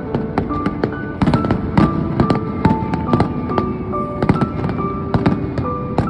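Fireworks bursting and crackling in quick, irregular bangs, several a second, over music with held notes.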